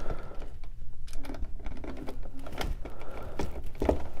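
Irregular small clicks, taps and scrapes of stiff wires and a plastic wall switch being pushed and worked into a tight electrical box.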